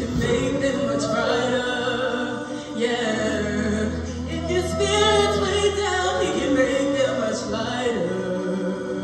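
Show choir singers performing a song with instrumental accompaniment; a steady low bass note comes in about three seconds in.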